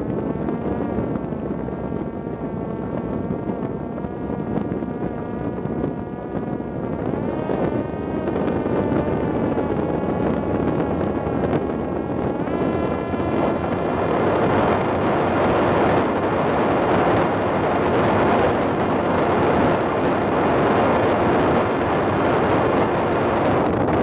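Parrot Disco fixed-wing drone in flight: the whine of its electric motor and propeller over rushing wind. The whine bends in pitch about a third of the way through, and from about halfway on the wind rush grows louder as the plane speeds up.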